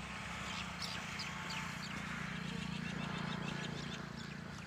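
Outdoor morning ambience: birds chirping here and there over a steady low engine hum that swells about three seconds in and then fades.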